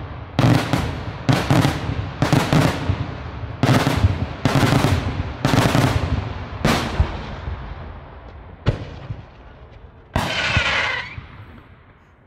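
Daytime fireworks: aerial shells bursting in quick succession, about seven loud bangs roughly a second apart, each with a short ragged tail. The run then thins to a single sharp bang and a last noisier burst of about a second near the end as the sequence dies away.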